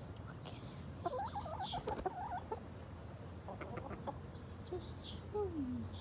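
Chickens clucking, a run of wavering, warbling calls about a second in, a few shorter calls near four seconds, and one low falling note near the end.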